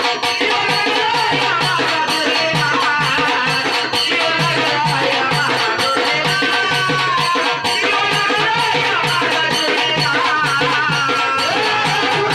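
Marathi folk devotional song music, an instrumental passage: a wavering melodic lead over a steady, repeating drum beat.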